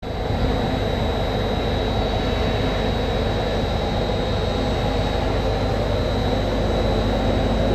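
Steady mechanical drone of the FRS Vac1450 mobile drilling-fluid processing plant running, its pumps and vacuum filter system at work, with a thin steady high whine over the low rumble.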